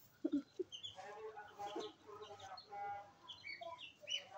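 Ducklings and chicks calling, a scatter of short high peeps mixed with lower clucking calls, the peeps coming more often in the second half.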